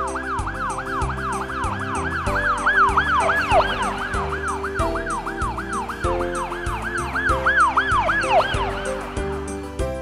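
Cartoon ambulance siren yelping, its pitch dipping and coming back up about three times a second, over backing music with a steady beat. It swells louder twice.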